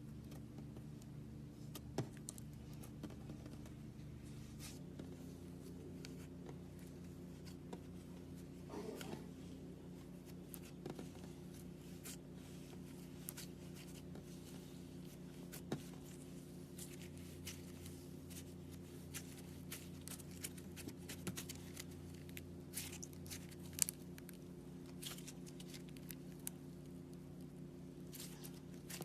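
Faint scattered clicks and small pops from glitter slime being handled, over a steady low electrical hum whose tones shift about five seconds in.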